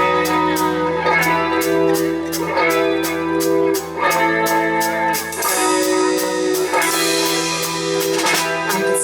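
Live cover band playing an instrumental passage between sung verses: guitar over bass and drum kit, with a steady hi-hat tick about four times a second.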